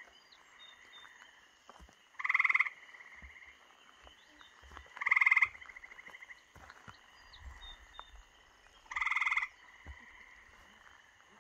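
A frog calling loudly: three short trills of about half a second each, a few seconds apart, over a faint steady high chorus.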